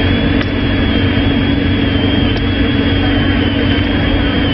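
Hiss of static from a CB radio with a thin steady whistle in it, over the low steady rumble of a car driving. The hiss switches on just before and cuts off just after, like a channel opening with no voice on it.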